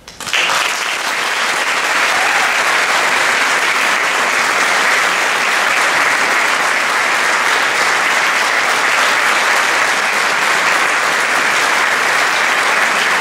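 Concert audience applauding at the close of an orchestral performance, breaking out about a quarter second in and continuing as steady, dense clapping.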